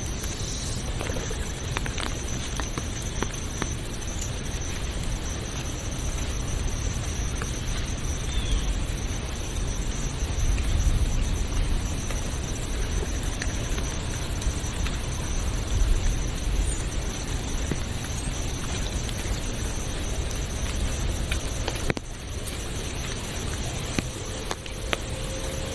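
Steady outdoor nature ambience: a dense rushing wash of noise with a continuous high-pitched insect drone over it and a few faint clicks. The sound shifts abruptly about 22 seconds in.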